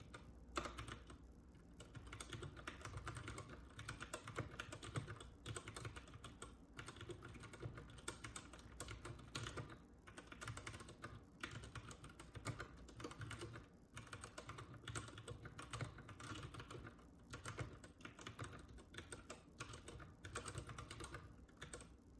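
Keychron K6 mechanical keyboard being typed on: a fast, continuous run of keystroke clicks, broken by short pauses every few seconds.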